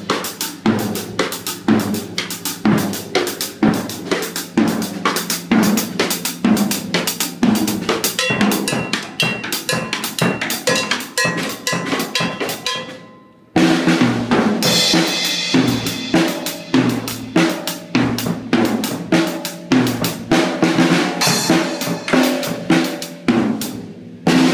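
Acoustic drum kit played with sticks: fast, busy patterns across the snare, toms and bass drum with Zildjian cymbal crashes and hi-hat. The playing drops away briefly about 13 seconds in and starts again abruptly.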